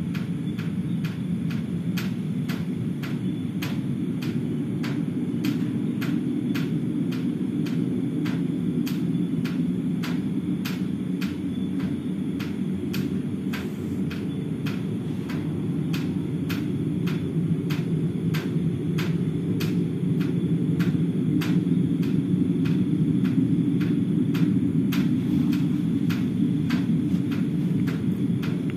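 A continuous low droning rumble that sounds like many aircraft flying low but stays in one place, growing a little louder in the second half; its source is unidentified. Over it, rainwater drips tick on a roof about twice a second.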